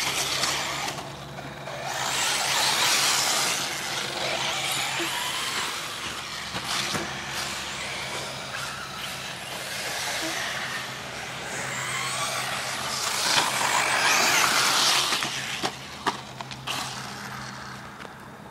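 Radio-controlled off-road buggies, an Ofna LX1 and a Durango DNX408E, racing on a dirt track. Their motors and tyres make a hissing whir that swells twice as they pass close, and there are a few sharp knocks near the end.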